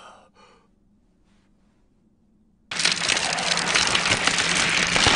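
A short gasping breath, then near silence for about two seconds; nearly three seconds in, a loud cracking, splitting sound effect starts suddenly and keeps going as a tree bursts out of a character's body.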